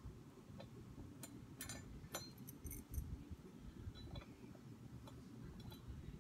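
Light metallic clicks and clinks of small bolts and parts being handled while reassembling a recurve bow riser, a cluster of them about one to three seconds in and a few more later.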